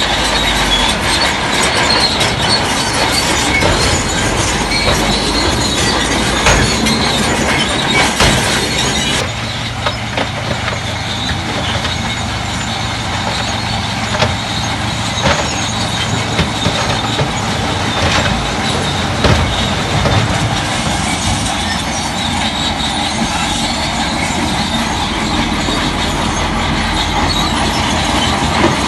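Crawler bulldozer at work: the diesel engine runs steadily under the metallic clanking and squealing of its steel tracks, with frequent knocks. The sound changes abruptly about nine seconds in.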